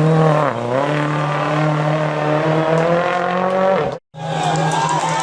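Rally car engine at high revs, dipping briefly about half a second in, then holding a steady high note. Just after four seconds it cuts off abruptly, and another rally car's engine comes in and rises.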